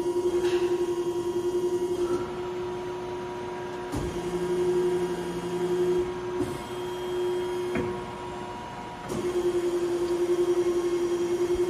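Wysong CNC hydraulic press brake cycling: a steady hydraulic whine that swells on and off in three stretches as the ram moves, with a fainter constant whine underneath. Sharp knocks come where each stretch starts and stops.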